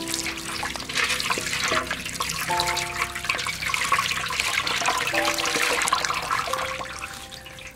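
Water splashing and streaming as a plucked, gutted goose carcass is rinsed by hand in a basin, with water pouring off the bird back into the basin. Faint background music with a few held notes plays underneath.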